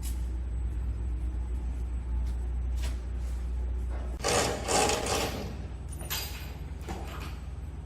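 Low steady hum of a CNC welding machine's drive that cuts out about four seconds in, followed by a loud scraping noise of about a second and two shorter, fainter ones.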